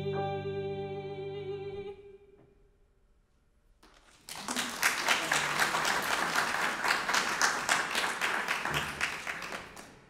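A soprano holds the song's final note over a sustained piano chord, and both stop together about two seconds in. After a short hush, audience applause breaks out about four seconds in and fades near the end.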